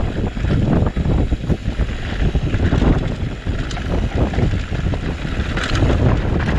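Wind buffeting the microphone of a camera riding on a mountain bike during a fast downhill descent, with dense, irregular rattling and knocks from the bike jolting over rough trail.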